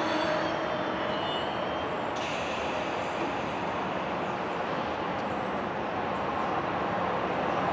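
Steady rumble and hiss of an Amtrak train standing at the station platform. A high hiss cuts off suddenly about two seconds in.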